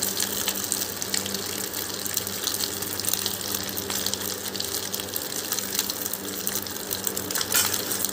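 Oil sizzling and crackling on a banana leaf in a hot frying pan as it is spread over the leaf with a spoon, a steady hiss full of small pops.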